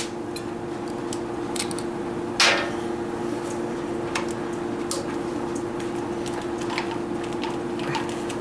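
Faint clicks and taps of metal line fittings and plastic retainers being handled while fitting transmission cooler line quick-connects, with one louder short scrape about two and a half seconds in. A steady hum runs underneath.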